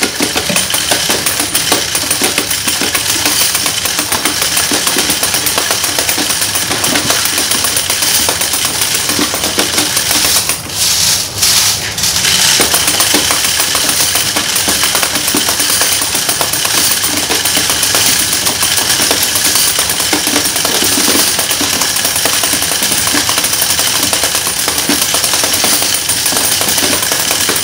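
Coin counter running, with quarters being fed through it in a rapid, continuous metallic clatter. The clatter breaks off twice briefly just after ten seconds in, then carries on.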